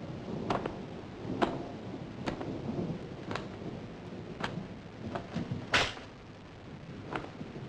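A low, steady rumble with sharp knocks or drips about once a second, and a brief louder hiss near the middle.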